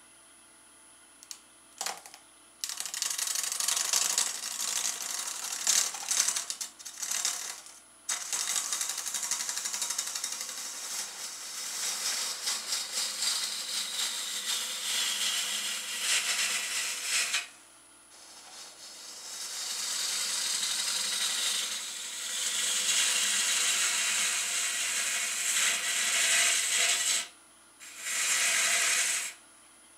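Bowl gouge cutting end-grain cherry on a spinning lathe: a dense hiss of shavings tearing off in long passes. The cutting starts a couple of seconds in and breaks off briefly about 8, 17 and 27 seconds in as the tool comes off the wood, with the lathe's faint steady hum underneath.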